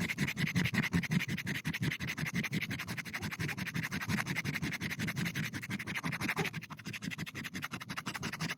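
Neolithic-style grooved stone axe head being ground back and forth on a large rock grindstone: stone scraping on stone in quick, even strokes, several a second, to put an edge on the axe.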